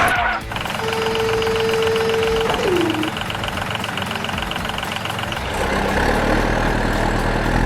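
Toy construction vehicle engine sound effects: a steady whine that drops in pitch about two and a half seconds in, over fast, even clicking, then a low engine rumble from about two-thirds of the way through.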